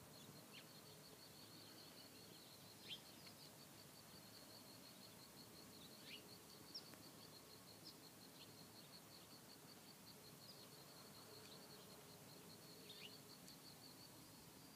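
Faint outdoor evening ambience: insects chirping in a steady, rapid, high trill, with a few short bird chirps scattered through it.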